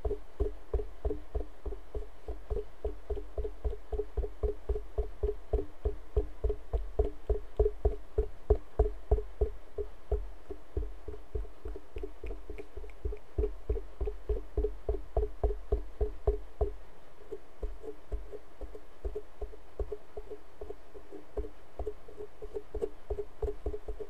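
Rapid dull tapping of a makeup sponge dabbed against the microphone, about four or five taps a second, each with a low thump. About two-thirds of the way through the thumps drop away and the taps go on lighter.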